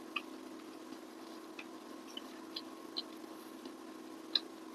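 Faint sounds of eating by hand: about half a dozen soft, scattered clicks and ticks over a steady low hum.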